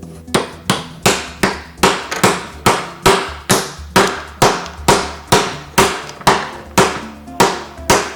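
A toy hammer knocking on the pieces of a toy nuts-and-bolts building set, struck over and over at a steady pace of a little over two blows a second.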